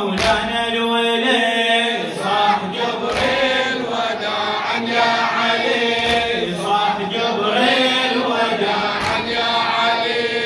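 A chorus of male mourners chanting a Shia latmiyya lament together. Sharp chest-beating strikes come about every three seconds.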